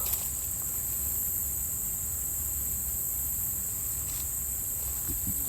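Steady high-pitched chorus of insects chirring without a break, over a low rumble.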